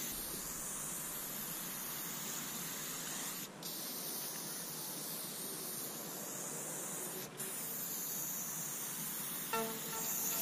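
Aerosol spray paint can hissing steadily as paint is sprayed onto a wall, broken twice by a brief gap. A few notes of music come in near the end.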